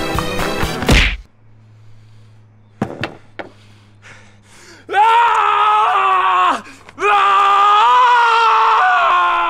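Music stops on a sharp hit about a second in; after a few quick knocks, a person lets out two long, loud screams, the second running to the end.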